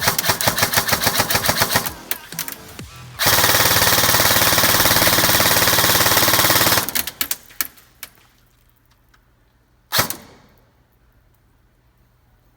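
E&C M4 R.I.S. Advanced airsoft electric gun firing on full auto: rapid strings of shots, then one long unbroken burst of about three and a half seconds, a few scattered shots after it, and a single last shot near the end.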